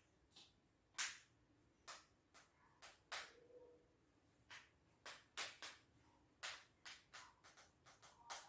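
Near silence broken by faint, irregular sharp clicks, about one or two a second.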